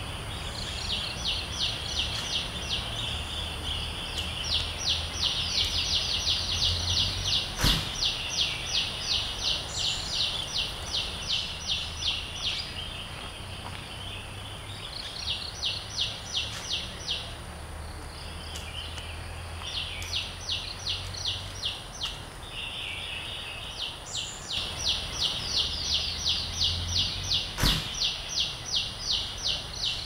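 An animal calling in long trains of high-pitched pulses, about three a second, that stop and start several times over a steady high drone. Two sharp clicks, one about a quarter of the way in and one near the end.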